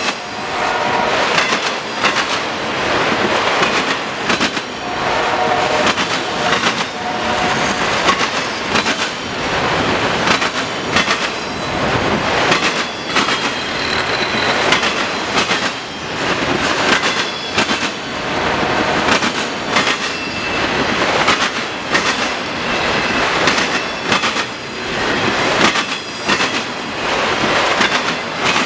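Freight train's autorack cars rolling past, their wheels banging over a railroad diamond crossing in rapid, uneven clacks. Short high-pitched wheel squeals come and go.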